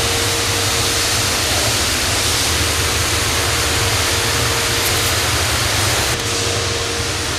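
Steady rushing noise of a workshop's ventilation fans, with a faint steady hum under it.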